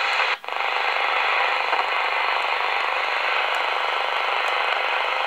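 Shortwave receiver's speaker giving steady static hiss between stations while a new frequency is keyed in, cutting out for a moment about half a second in as the radio mutes and retunes.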